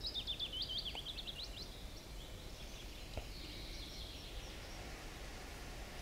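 Quiet forest ambience. A small songbird sings a quick run of high chirping notes in the first second and a half, then fainter bird song follows, over a steady low background hum.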